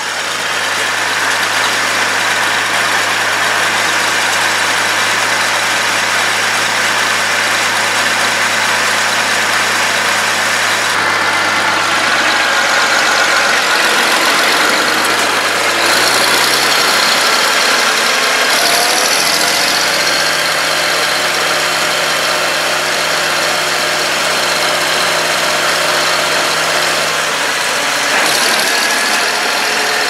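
Oliver 1650's six-cylinder diesel engine running steadily at first, then changing speed several times as the tractor is driven.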